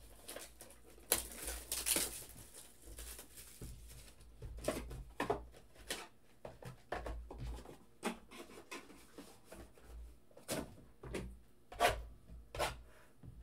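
Cardboard trading-card hobby box being opened and handled: rustling and a tearing, scraping stretch about a second in, then scattered taps and clicks as the lid and boxes are lifted and set down on the desk.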